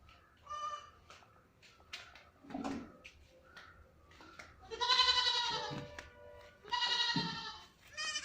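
Goats bleating: a short bleat, then two long, loud, wavering bleats about four and a half and six and a half seconds in, and another starting near the end. Faint clicks and knocks sound between the calls.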